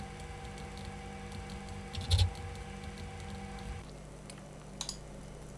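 Faint computer mouse clicks over a low steady electrical hum, with one louder dull thump about two seconds in; the hum drops away near four seconds in.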